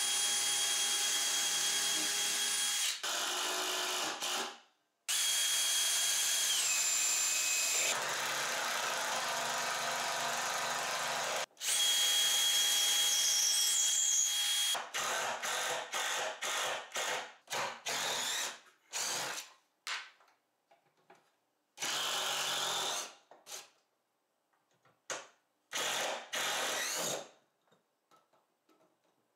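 Cordless drill boring into wood and driving screws: three long steady runs of motor whine, one dropping in pitch partway through as the motor slows under load, then a string of short trigger bursts in the second half as the screws are run down tight.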